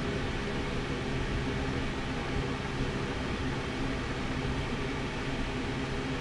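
Steady mechanical hum and hiss from running machinery, even throughout with no knocks or clanks.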